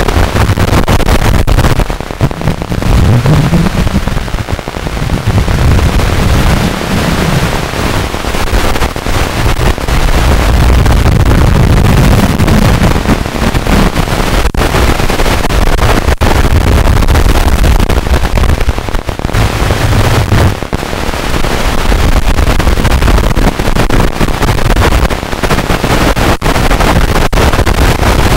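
Loud, harsh, distorted noise with a heavy low rumble that swells and fades, broken by brief dropouts.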